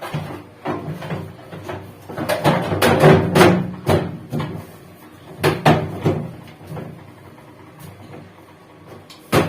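Hard parts of a washing machine being handled and fitted by hand: a run of irregular knocks and clatters, loudest about three seconds in, with one sharp knock near the end.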